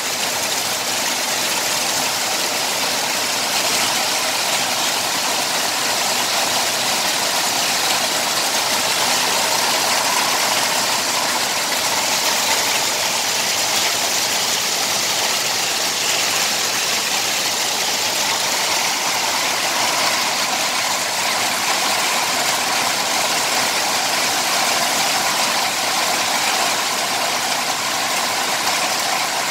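Heavy rain falling steadily, a dense even hiss with no letup.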